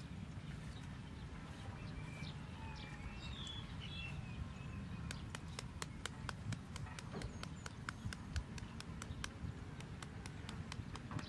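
Small knife peeling a green mango, its blade shaving the skin in quick strokes: a fast run of crisp clicks from about halfway through.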